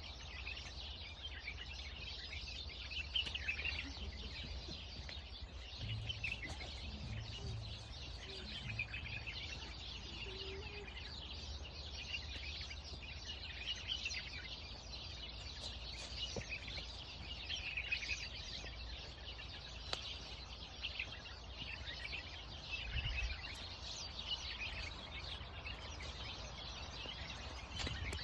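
Many small songbirds chirping and twittering continuously, over a steady low rumble.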